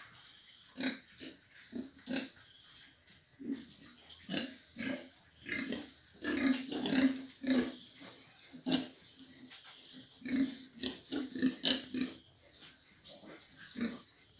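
Domestic pigs grunting in a string of short grunts, about one every half second, with a denser run of grunts between six and seven and a half seconds in.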